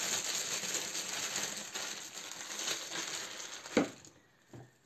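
Disposable plastic piping bag crinkling as it is handled and squeezed in the hands, with a single sharp knock near the end.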